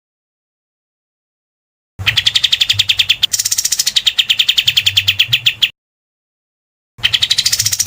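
A songbird's rapid, harsh rattling trill of evenly repeated notes, about ten a second, in a burst of nearly four seconds starting two seconds in, and a second burst beginning near the end, with total silence between. This is a 'tembakan kasar' (rough shot) call of the kind used in masteran recordings to train competition songbirds such as white-rumped shamas.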